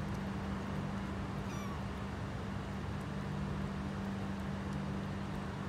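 A kitten gives one short, high mew about one and a half seconds in, over a steady low hum.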